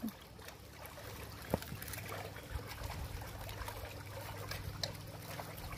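Faint trickling and lapping of pool water, with a few small scattered ticks over a steady low hum.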